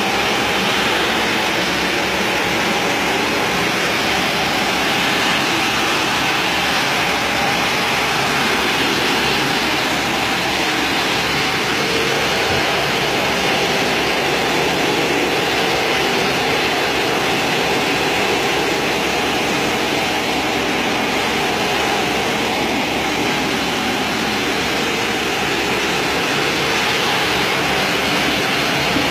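Tile-and-grout spinner tool running over a wet tile floor: a steady, loud roar of its pressurised water spray and vacuum suction through the hoses.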